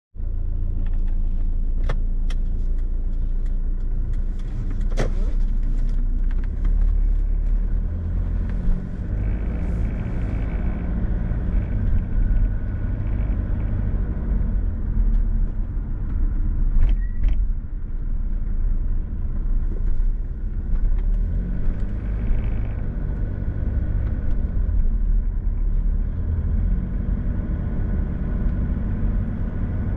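A car driving on the road: steady low rumble of road and engine noise, with a few sharp clicks.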